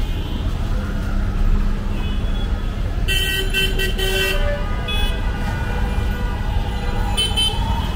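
Steady street traffic noise, with a vehicle horn honking in a few short blasts about three seconds in and a brief honk again near the end.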